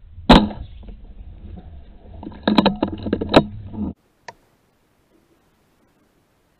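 A single rifle shot at a rat, one sharp crack. About two seconds later comes a quick cluster of clicks and knocks, then the sound cuts off abruptly.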